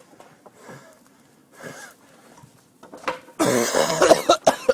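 A man coughing: a few short, weak coughs, then a harder fit of coughing about three and a half seconds in.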